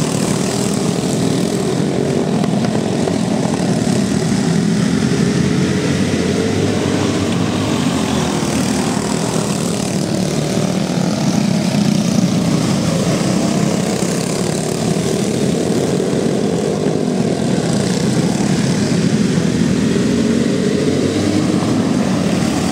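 A pack of racing go-karts with single-cylinder Briggs & Stratton Raptor engines running together at full race pace, their overlapping engine notes rising and falling as the karts brake into and accelerate out of the turns.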